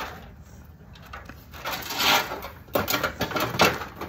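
Handling noise from the parts of a dismantled TV: a short scraping rush about two seconds in, then several sharp clicks and knocks of plastic and metal pieces.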